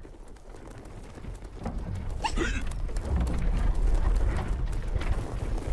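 Cartoon sound effects: a clattering, rumbling commotion full of clicks that grows louder through the middle, with a couple of short squeaky vocal glides.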